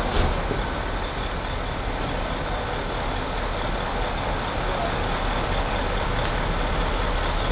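Coach bus engine idling with a steady low rumble, with a short knock just after the start and a fainter tick about six seconds in.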